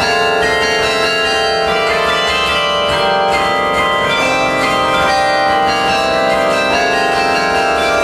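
Carillon bells played from the baton keyboard: many tuned bells struck one after another in a running melody, each note ringing on and overlapping the next.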